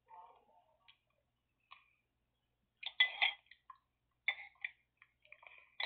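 Metal spoon clinking and scraping against a bowl, scattered small ticks with a louder cluster of clinks about three seconds in and another just after four seconds.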